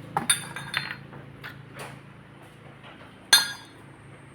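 Metal parts of a car's front shock absorber strut clinking as it is taken apart. There are a few light clicks about a second in, then one sharp ringing clink near the end.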